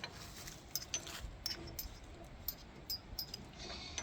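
Faint, scattered light metallic clinks and taps from tractor hitch hardware and hand tools being handled.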